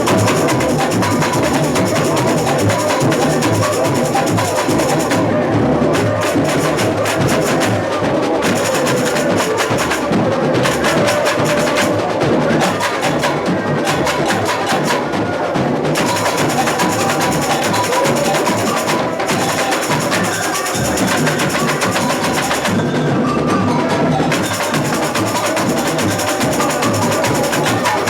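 Samba school drum section (bateria) playing a fast, dense samba groove: deep surdo bass drums under snare drums and sharp, high tamborin and agogô-like clicks. A few times the brightest high layer drops out briefly while the drums keep going.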